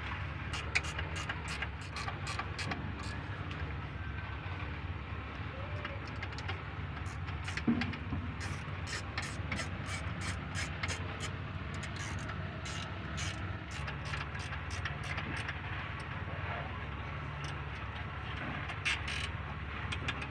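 Wrench work on the alternator's mounting bolts: a string of short, sharp metal clicks and clinks, in clusters, over a steady low rumble.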